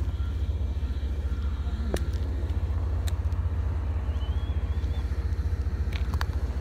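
Low, steady rumble of an idling engine, throbbing evenly, with a few light footsteps and clicks on pavement and a brief faint squeal about four seconds in.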